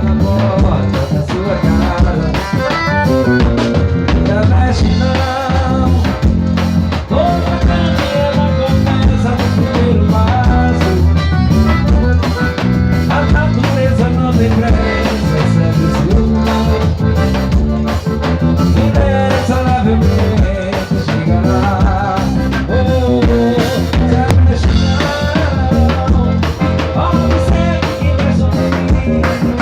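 Loud music with a drum kit keeping a steady, busy beat under a melodic line.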